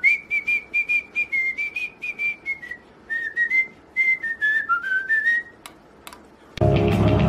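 White pet parrot whistling a tune of short, quick notes, about four a second, its pitch dipping and rising, while it faces its reflection in a hand mirror; the whistling stops about two seconds before the end, and loud rock music cuts in near the end.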